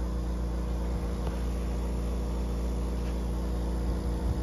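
Vacuum pump running steadily with a low hum and an even pulsing beat, drawing air through an open port, so the table is not yet holding suction.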